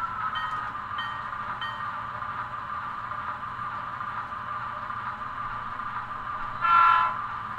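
Sound of an HO scale model diesel locomotive: a bell dings about every half second and stops a couple of seconds in, over a steady engine hum. Near the end comes one short, loud horn blast.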